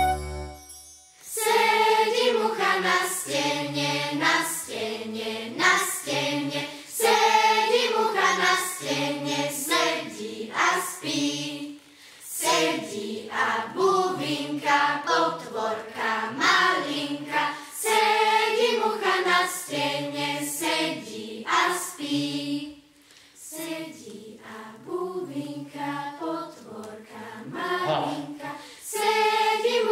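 Children's choir singing a traditional Slovak children's song in short phrases, coming in about a second in.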